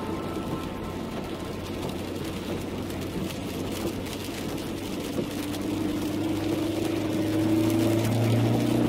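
Car driving on a wet road, heard from inside the cabin: steady engine hum and tyre noise, with the engine note rising in pitch and growing louder in the second half.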